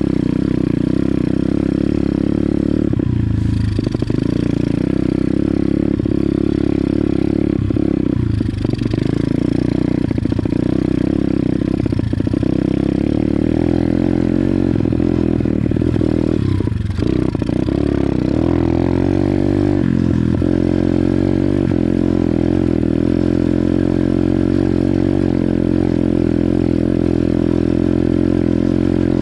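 Pit bike engine running steadily under throttle while being ridden, with a few short drops in the engine note.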